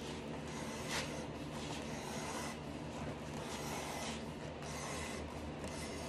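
Razor blade of a handheld strap cutter drawn along the straight edge of a cowhide, slicing off a belt strap an inch and a half wide: a continuous rubbing cut through the leather.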